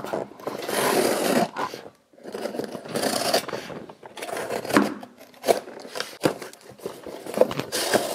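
Utility knife slitting the packing tape on a cardboard box, two long scraping cuts, followed by a few sharp knocks and the rustle of cardboard flaps being pulled open.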